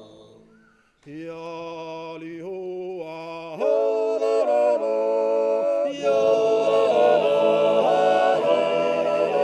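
Men's choir singing a cappella in yodel style: after a second of near silence a voice with a wavering pitch enters over a low held note. More voices join about three and a half seconds in and again near six seconds, each time growing louder and fuller.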